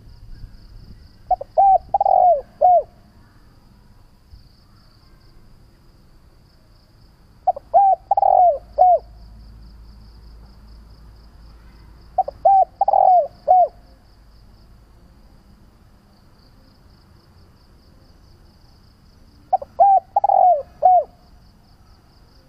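Spotted dove cooing: four separate phrases of several short, rounded coo notes, with pauses of several seconds between them. A faint, high, pulsing trill runs underneath.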